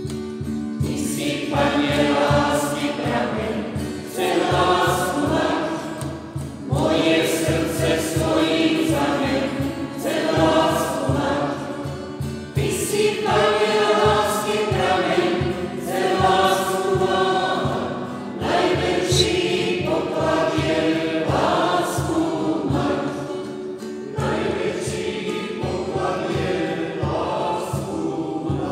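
A choir singing a Slovak Christian song in phrases a few seconds long, over accompaniment with a steady low pulse.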